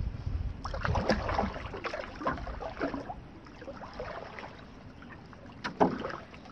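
Canoe paddle strokes splashing and dripping in the water, loudest in the first few seconds, with one sharp knock near the end.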